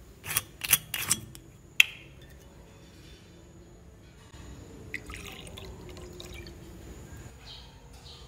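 A few sharp glass clinks in the first two seconds, then clear liquid poured from a glass bottle into a small shot glass for about three seconds, starting around four seconds in.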